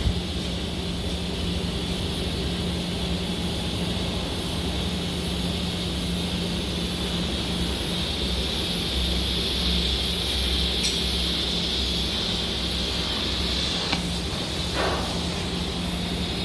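Steady machinery hum with a hiss over it, and a few faint clicks near the end.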